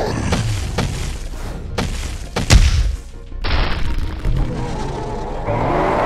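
Cartoon fight sound effects over background music: a few sharp hits, then a heavy booming slam about two and a half seconds in, followed by a crashing rush of noise.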